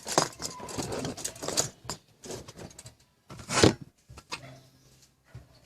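Handling noise of tools and parts being worked on: a busy run of rubbing, clicking and scraping, with one loud scrape about three and a half seconds in, then quieter with a faint hum.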